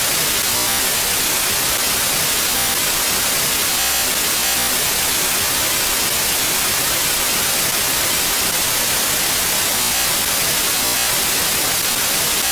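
Loud, steady, harsh static hiss, heaviest in the treble, running without a break. It is an audio glitch that the uploader gets every time the video is rendered.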